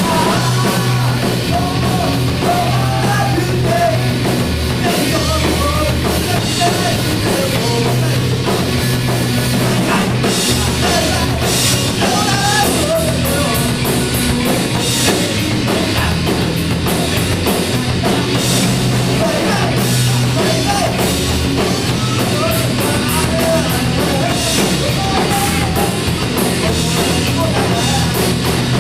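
Loud rock music played live by a band, with a drum kit driving it and a wavering melody line over the top.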